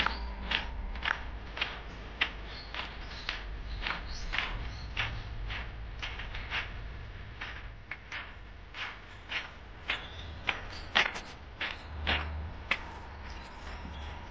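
Footsteps of a person walking at a steady pace, about two crisp steps a second, over a faint low rumble.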